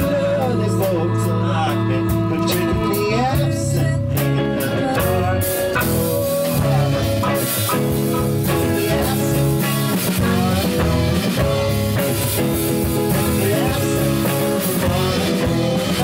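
A band's rock song playing, with guitar leading over a full backing.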